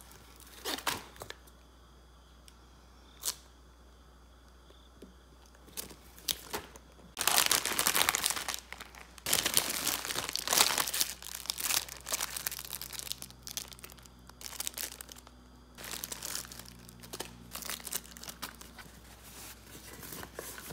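Plastic snack packaging crinkling and rustling as it is handled, after a few separate clicks and taps; the crackling gets loud and dense about a third of the way in and carries on in uneven bursts.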